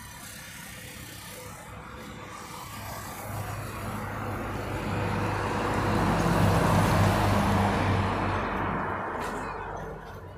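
A motor vehicle passing close by: engine hum and tyre noise that swell over several seconds to a peak a little past the middle, then fade away near the end.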